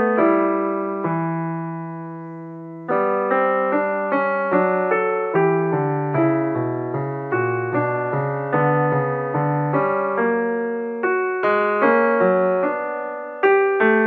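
Background piano music: notes and chords, each starting sharply and dying away. One chord is held and fades for about two seconds near the start before the playing picks up again.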